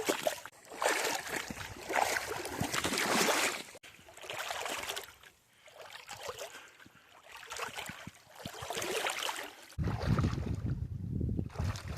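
Brook water splashing and sloshing in uneven surges a second or two long. A low wind rumble on the microphone sets in near the end.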